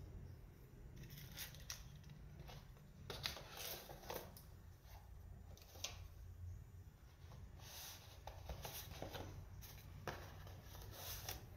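Light, irregular rustles and scrapes of paper knife boxes and a bubble-wrap liner being handled and slid across a wooden table, with a sharp tick about six seconds in.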